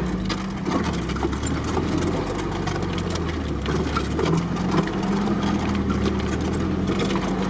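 Off-road vehicle engine running steadily, heard from inside the cabin, with scattered clicks and knocks as it moves over a rutted mud track.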